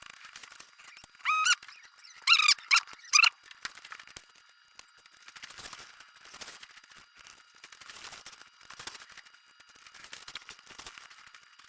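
Craft knife blade squeaking as it is drawn through foam board: four short, high squeaks in the first three and a half seconds, then faint scratching as the cut goes on.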